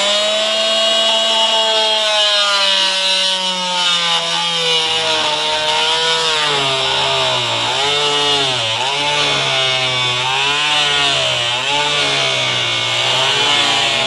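Oscillating multi-tool running with a hand-filed, formerly dull blade plunge-cutting into plywood, giving a steady buzzing rasp. From about five seconds in, the motor's pitch dips and recovers again and again as the blade is pushed into the wood.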